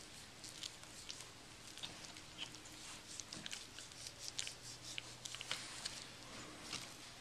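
Knife slicing through the fat and meat of a raw beef brisket: a faint, irregular run of small wet clicks and ticks as the blade works along the fat.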